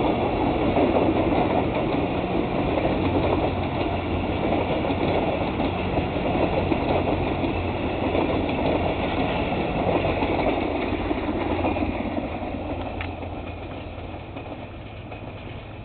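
Alaska Railroad passenger cars rolling past on the rails: a steady rumble of wheels and running gear with a low hum. Over the last few seconds it fades as the end of the train pulls away.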